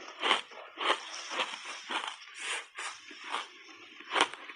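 Refrozen ice coated in matcha powder crunching between the teeth as a big mouthful is chewed, about two crunches a second, with one sharp crack about four seconds in.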